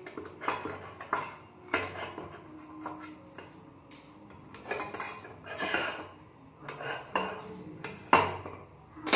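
Knife cutting soft paneer into pieces on a stainless steel plate, the blade knocking and scraping against the metal in irregular strokes about a second apart, the loudest stroke near the end.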